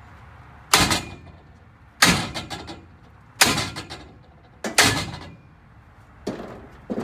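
Maul striking the end of a length of metal conduit run through a GM 10-bolt rear axle housing, driving against a seized axle bearing race: six ringing metal blows a little over a second apart, the last two lighter and closer together.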